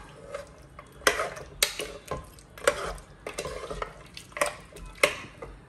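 A metal ladle stirring thick mutton curry in a pressure cooker pot, scraping and knocking against the pot's metal side in about six irregular strokes roughly a second apart.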